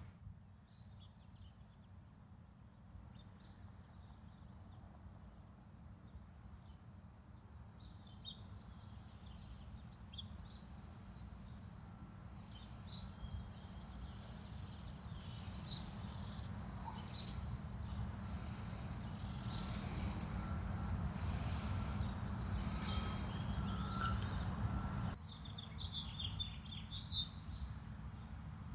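Faint outdoor ambience: small birds chirping over a low steady rumble. The rumble swells and then drops away abruptly near the end, where a louder chirp follows.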